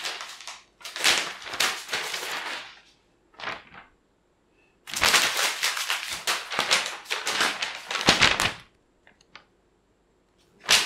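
A sheet of paper rustling and flapping as it is waved about, in several bursts with a long one in the middle, then a few light clicks and a sharp crackle at the very end.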